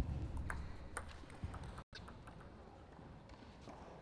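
Table tennis rally: a celluloid ball clicking sharply off the bats and table about every half second for the first second and a half, then only faint ticks, over a low rumble of hall noise.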